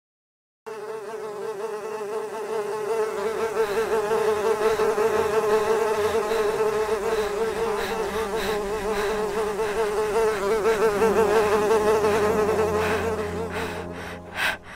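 Steady buzzing of flying insects, its pitch wavering constantly. It starts abruptly under a second in and dies away near the end.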